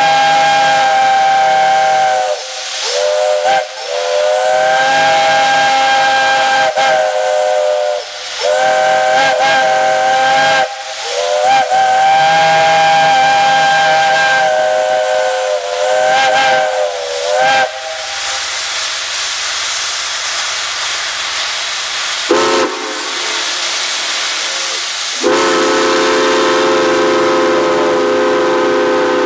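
Steam locomotive chime whistles blowing a series of long and short blasts, several notes sounding together in a chord. Midway the blasts give way to a steady hiss of steam for several seconds, and near the end a lower-pitched chime whistle sounds one long blast.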